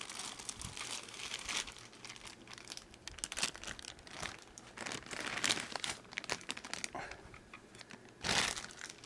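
Plastic bag crinkling and rustling in irregular bursts as a model train car is worked out of it. The loudest rustle comes near the end.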